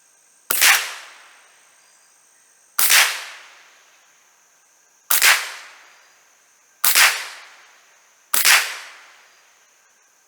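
.22 LR Savage Model 64 semi-automatic rifle firing five shots at an uneven pace, about one every one and a half to two seconds, each report trailing off in a short echo. A faint steady high buzz of insects runs underneath.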